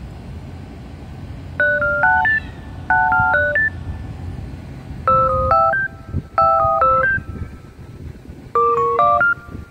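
Background music: a simple electronic melody of short bell-like phrases of four or five notes each, repeating, with a steady low rumble underneath.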